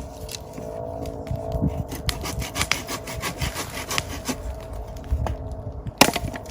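A saw cutting through firewood, steady irregular strokes, with a sharp knock about six seconds in.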